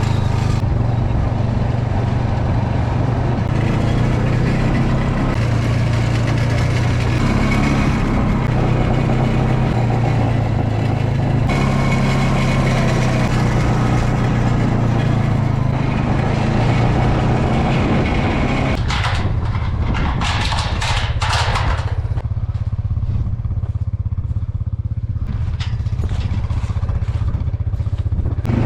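A vehicle engine running steadily at low speed, with a short run of clattering knocks about two-thirds of the way through.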